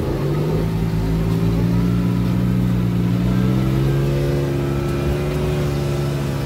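Sherp ATV's diesel engine running steadily under load through the swamp, its pitch edging up a little partway through.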